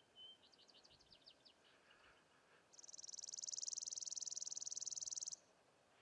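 Chipping sparrow singing one long, dry, rapid trill on a single high pitch. It starts a little under three seconds in and stops abruptly after about two and a half seconds. Before it comes a faint run of about ten quick, high chirps.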